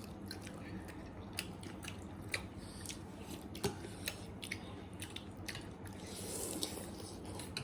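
Close-up mouth sounds of eating: chewing with irregular wet clicks and smacks, and a brief breathy rush about six seconds in.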